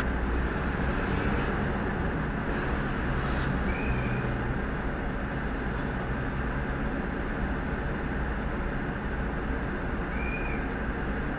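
Steady low rumble of a parked fire truck's engine running at the scene, with two faint short chirps.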